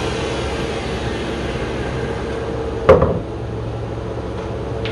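Steady hum of a ShopBot CNC router with its spindle winding down after a cut in plywood. One sharp knock about three seconds in.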